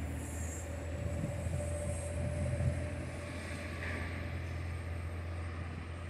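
KiHa 40 diesel railcar pulling away, its diesel engine running with a steady low drone that slowly fades as it moves off. A high hiss dies away about half a second in.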